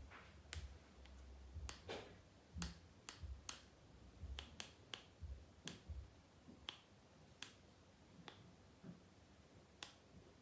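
Faint, irregular sharp clicks and light taps, about twenty spread over ten seconds, some with a soft low thump beneath them.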